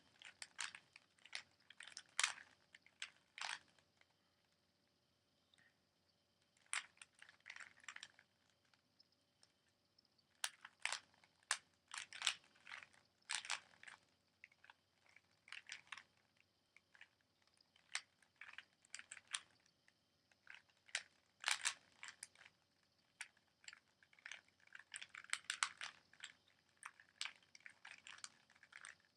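A 3x3 Rubik's Cube turned quickly in a speed solve: rapid runs of plastic clicking and clacking as the layers turn, broken by short pauses between runs of moves.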